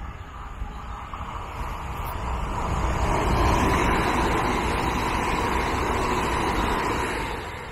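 Z 50000 Francilien electric multiple unit passing at speed: its rolling noise swells about two seconds in, stays loud through the middle, then fades near the end as the train goes by.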